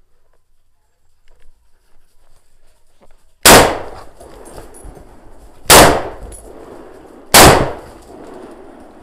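Scoped hunting rifle fired three times in quick succession, the second shot about two seconds after the first and the third about a second and a half later, each a sharp crack with a brief echoing tail. Faint rustling of footsteps on leaves and stones comes before the first shot.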